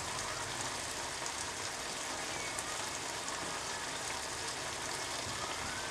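Pork pieces in a kroeung sauce simmering and sizzling in a frying pan: a steady crackling hiss with faint scattered pops.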